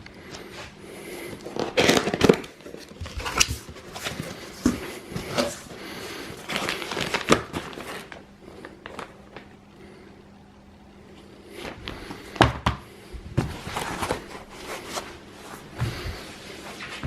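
A cardboard box and its packing being handled and opened: irregular rustling and crinkling with knocks and thumps, busiest about two seconds in and again around twelve seconds, over a faint steady hum.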